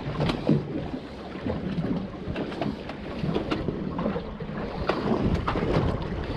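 Wind on the microphone and water sloshing around a small fishing boat, a steady low rumble with a few light knocks scattered through it.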